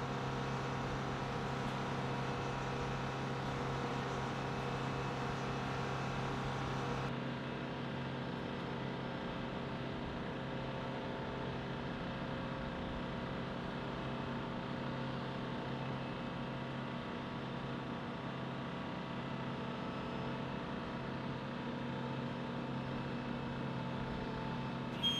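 Steady drone of flight-line ground support equipment running, with several steady whining tones on top. About seven seconds in, the high hiss drops away and the drone carries on a little lower.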